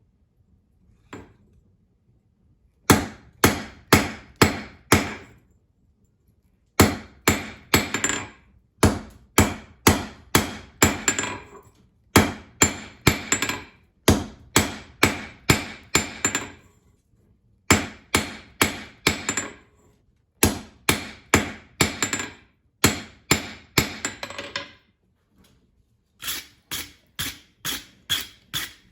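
Hammer striking hot 5160 coil-spring steel on an anvil, squaring the working end of a slot punch: ringing blows in groups of three to five, about two a second, with short pauses between groups, and lighter, quicker blows near the end.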